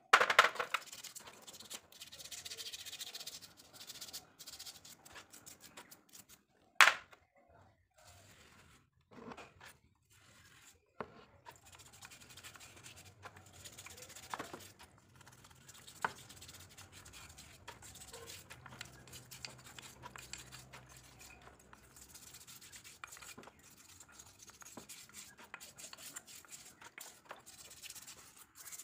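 Hand-washing wheel-hub parts in a tray of dirty cleaning liquid: a brush scrubbing and hands rubbing metal parts, making a scratchy, uneven rubbing sound. Two sharp knocks stand out, one at the start and one about seven seconds in.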